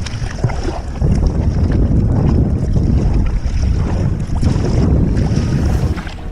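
Wind buffeting the microphone on a kayak at sea, a loud low rumble that grows stronger about a second in and eases near the end, with water lapping at the hull.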